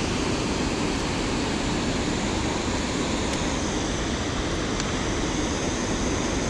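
Steady rushing roar of river water spilling over a low dam's spillway.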